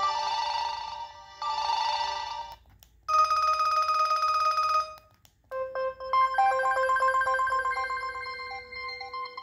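LG VX9400 cell phone playing its preloaded electronic ringtones: two short warbling rings with a brief pause between them, then a steadier ring of about two seconds, and after a short gap a melodic ringtone with stepping notes begins.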